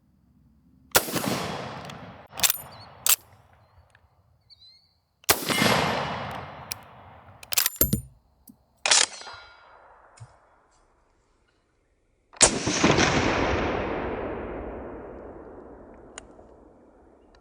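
Steyr M95/30 straight-pull rifle in 8x56R fired three times, each shot followed by a long rolling echo, the last one fading over about five seconds. Short sharp metallic clacks between the shots are the straight-pull bolt being cycled.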